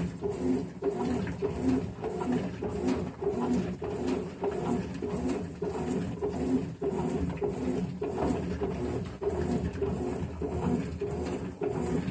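CWH12BB washing machine agitating on its normal cycle, the agitator driving back and forth in a steady rhythm of about two strokes a second.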